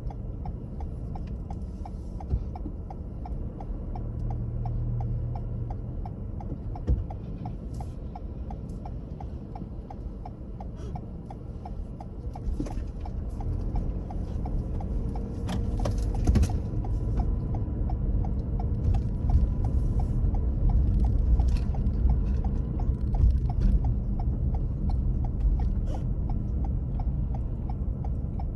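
Low, steady rumble of a car on the road, getting louder about halfway through, with an even, rapid light ticking.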